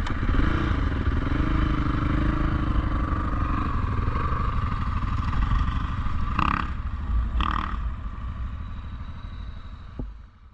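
ATV engine running steadily on a trail ride, with rough low rumble and clatter. Two brief higher-pitched sounds come about six and seven seconds in, and the engine sound fades out near the end.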